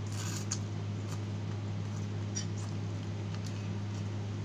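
Close-up chewing of fried chicken: a few soft, wet mouth clicks and smacks over a steady low electrical hum.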